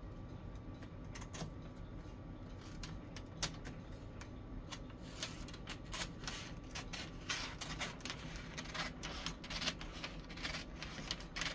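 Scissors cutting through wrapping paper: a run of faint crisp snips and paper crackle, busier from about halfway through.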